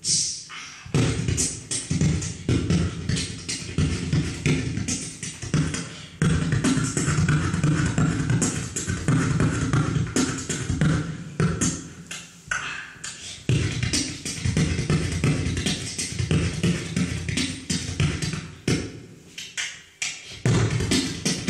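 Beatboxing into a handheld microphone: vocal drum sounds in a steady rhythm, with deep bass beats and high hissing strokes, broken by brief pauses every few seconds.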